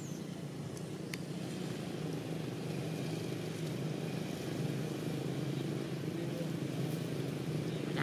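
A motor vehicle's engine running steadily, a low hum that grows gradually louder.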